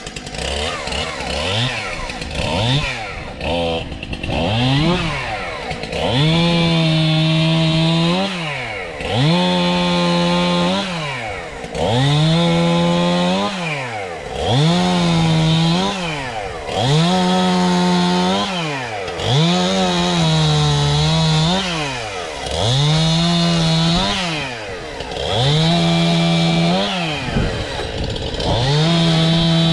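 Two-stroke chainsaw revved to full throttle over and over: about every two and a half seconds the engine note climbs, holds high and steady for a second or two, then falls back. About eight such bursts, louder and more regular after the first few seconds.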